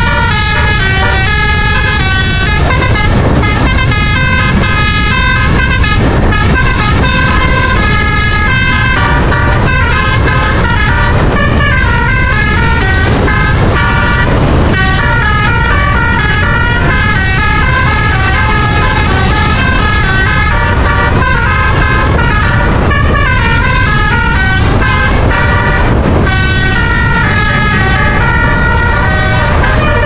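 A bus's telolet musical air horn, a set of twelve roof-mounted trumpets, playing a continuous tune of short stepping notes that rise and fall, over a steady low rumble of road and wind noise.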